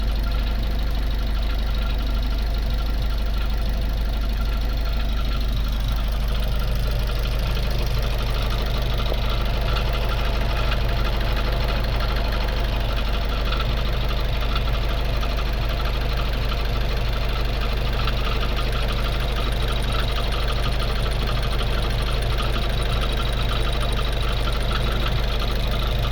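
Mazda 6 (GH) engine running steadily with a continuous rapid knocking, clattering noise from the engine, the fault the owner is recording.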